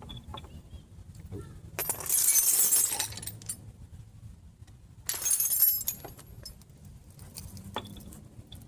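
Two bursts of metallic clattering, each about a second long, from hand tools and metal parts being handled during the wheel hub job, with small clicks between them.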